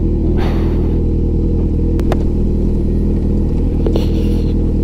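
Honda CB1000R sport bike's inline-four engine running steadily at low revs as it rides slowly over a rocky dirt trail, with a brief hiss less than a second in and a few short knocks about two seconds in and near the end.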